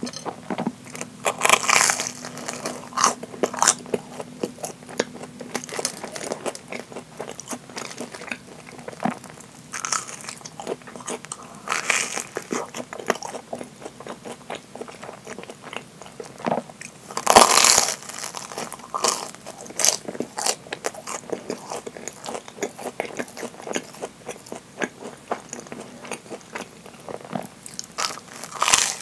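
Bites into deep-fried, breadcrumb-crusted curry bread: repeated crisp crunches of the fried crust with chewing in between, the loudest crunch about two-thirds of the way through.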